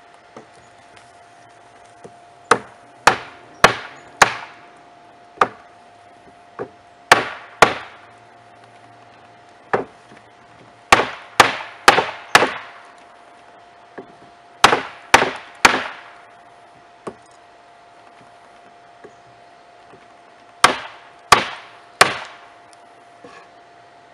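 Hammer blows on a hot forged railroad spike laid over the edge of a scrap wooden board, bending the knife's handle into a curve: sharp strikes in quick groups of three or four, about twenty in all. A faint steady high tone runs underneath.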